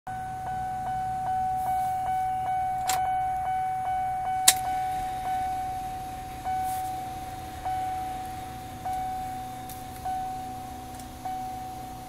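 Pickup's instrument-cluster warning chime dinging over and over, about two and a half dings a second at first, slowing to about one every second and a quarter from about six seconds in. Two sharp clicks fall near the three- and four-and-a-half-second marks, the second the loudest moment, over a steady low hum.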